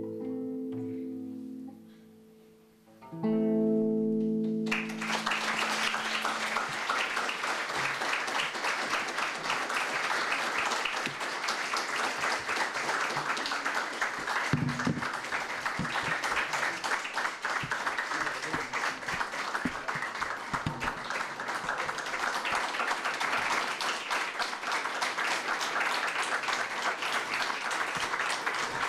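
A kanun, the Turkish plucked zither, plays the closing notes of a piece and ends on a ringing chord about three seconds in. About five seconds in, an audience breaks into steady applause, which is the main sound from then on.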